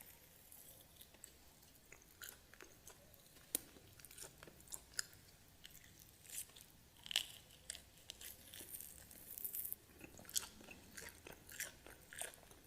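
Close-miked crunchy chewing and biting of crispy food, mukbang-style: irregular crackles and crunches with soft mouth sounds between them.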